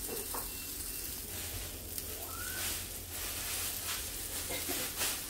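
Lard and salsa sizzling steadily under bean-topped picaditas on a hot griddle, with scattered small pops.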